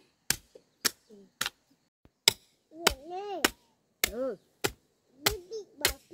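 A run of sharp, evenly spaced strikes, about two a second, with a small child's short high-pitched vocal sounds between them.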